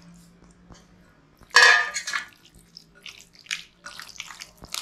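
Marinated chicken pieces being dropped into a thick batter and worked by hand, with wet squelching and splatting sounds. The loudest splat comes about a second and a half in, followed by smaller squishes as the pieces are mixed.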